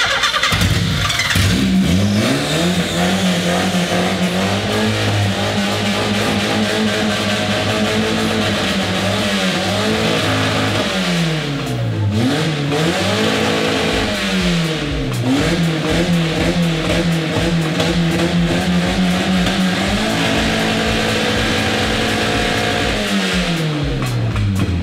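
Nissan R31 Skyline wagon's engine running and being revved from the driver's seat. It climbs to a steady raised speed and holds there, drops and picks up again a few times in the middle, and falls back near the end.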